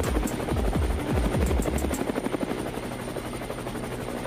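Helicopter rotor chopping in quick, even beats, a sound effect under the mock traffic report, with music underneath whose bass notes stop about two seconds in.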